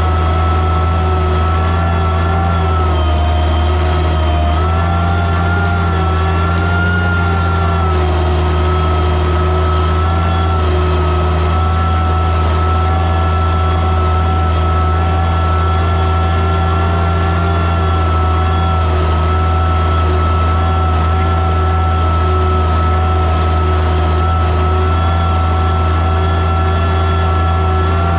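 Oliver 77 tractor's six-cylinder engine running steadily under load while pulling a plow, its pitch wavering slightly a few seconds in.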